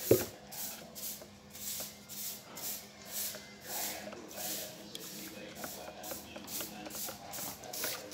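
Thick emulsion wall paint being stirred in a plastic bucket with a flat stick: a steady rhythm of wet swishing, scraping strokes, about two or three a second. A single sharp knock right at the start, the stick or bucket being bumped.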